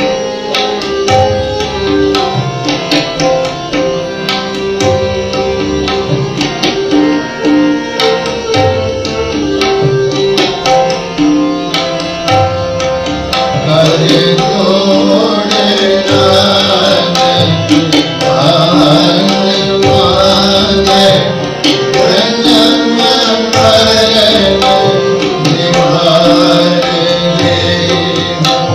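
Sikh devotional music (kirtan): tabla played under steady held melodic notes, with a voice singing from about halfway in.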